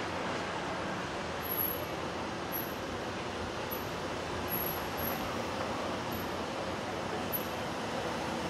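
Steady city traffic noise, an even continuous hum of cars on nearby streets with no distinct single event standing out.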